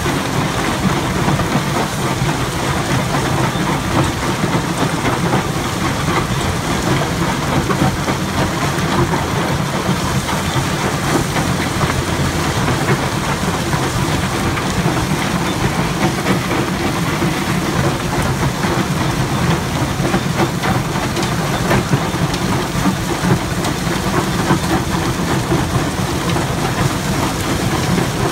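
Syntron SyntroFlo vibratory crusher loading feeder running under load: broken rock rattles and tumbles across its vibrating steel pan and spills off the end in a continuous, even clatter, over a steady low machinery hum.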